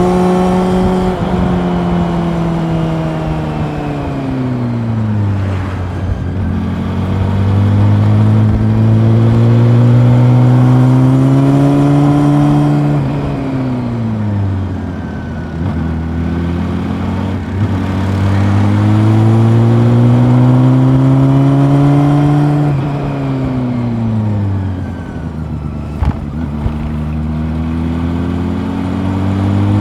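Honda CB400 Super Four's inline-four engine heard from onboard the moving bike. The engine note drops as it slows, then climbs steadily for several seconds as it pulls, in repeated cycles: falling near the start, rising, falling again around halfway and about three-quarters through, and climbing once more at the end.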